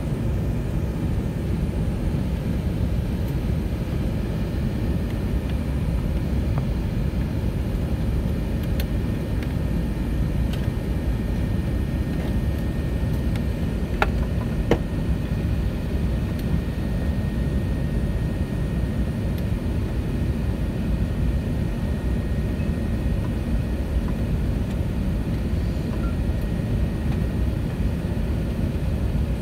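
Steady low rumble of an Airbus A380's engines and rushing air, heard inside the cabin during the climb after takeoff. Two faint clicks about halfway through.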